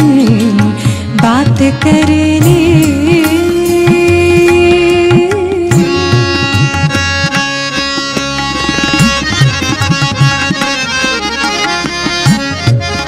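Instrumental passage of ghazal accompaniment. Tabla plays under a wavering, gliding melody line for about the first half. After that, steady held chords from an electronic keyboard take over.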